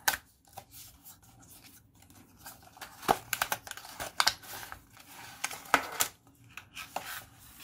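A small cardboard box being opened by hand: the end flap pulled open and the inner tray slid out, with cardboard scraping and rustling and several sharp snaps in the middle of the stretch. Near the end a plastic bag crinkles as the remote is handled.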